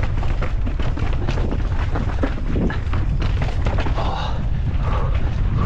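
Mountain bike being ridden fast over rough trail: a steady rush of wind on the camera microphone with frequent knocks and rattles from the bike.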